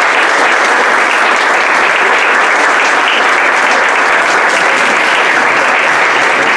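Audience applauding: a roomful of people clapping, dense and steady.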